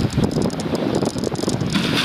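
Wind buffeting the microphone outdoors: an uneven, gusty low rumble with a few faint high ticks.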